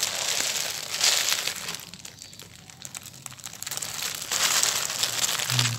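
Clear plastic shirt packaging crinkling as it is handled. The crinkling is loud for the first couple of seconds, softer in the middle, and loud again near the end.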